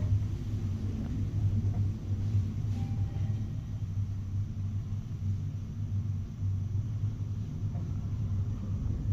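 An old elevator travelling between floors: a steady low rumble from the car and its hoist machinery.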